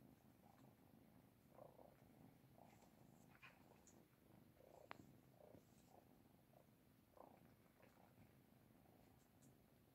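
Oriental shorthair cats purring faintly, a low steady rumble, with soft rustling and one sharp click about five seconds in.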